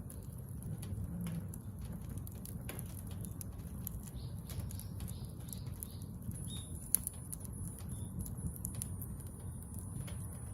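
Wood fire of scrap building lumber crackling, with irregular sharp pops over a steady low rumble; one pop stands out about seven seconds in.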